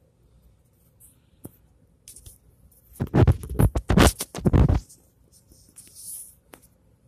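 Handling noise: the recording phone's microphone rubbed and scraped, loud for nearly two seconds about three seconds in, with faint light rustles and clicks before and after.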